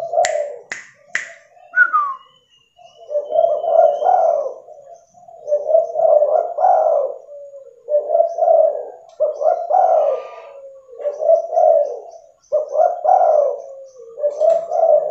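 Spotted dove (tekukur) giving its cooing song: about seven low, repeated coo phrases, one every second and a half to two seconds. A few sharp clicks come in the first second or so.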